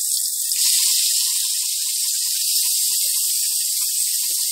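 Spice-marinated chicken sizzling as it is tipped into hot oil in an aluminium cooking pot: a loud, steady hiss that swells about half a second in.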